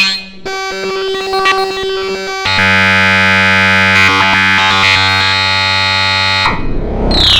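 MIDI playback of harsh synthesized tones in sections that switch abruptly: a held note, then about two and a half seconds in a dense, buzzy, alarm-like chord. Near the end it cuts to a new sound made of repeated falling pitch sweeps.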